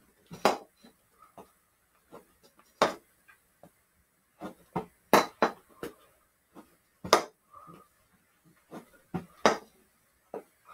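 Hockey stick blade catching, tapping and passing back a small tossed ball: a series of sharp knocks, five loud ones a couple of seconds apart with lighter taps between.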